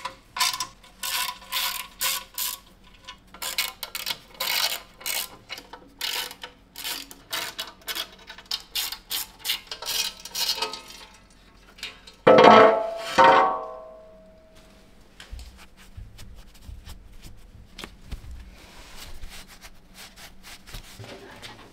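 Ratchet wrench clicking in quick, irregular runs, undoing the bolts of a motorcycle's bash plate. About twelve seconds in, a loud metallic clang rings briefly, then it goes quieter.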